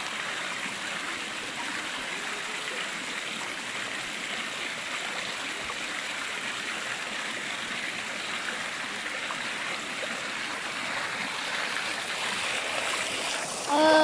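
Shallow rocky stream flowing over stones, a steady rush of running water. Just before the end a brief, loud voice-like call cuts in over it.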